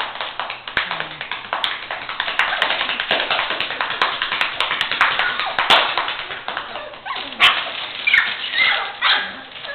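Newspaper crinkling and tearing as a litter of mastiff puppies pounce on and tug at it, with a few sharp crackles. Near the end come several short, high puppy whimpers.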